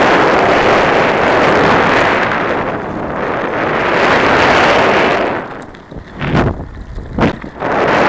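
Wind buffeting the microphone of a camera carried on a moving mountain bike, a loud steady rush that eases off about five and a half seconds in, broken by two short gusts before it picks up again.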